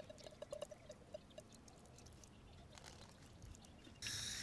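Faint small clicks and scrapes of a screwdriver packing bread into a dripping copper pipe end. About four seconds in, a sudden steady hiss starts and grows loud at the very end: a propane torch being opened and lit to sweat the pipe.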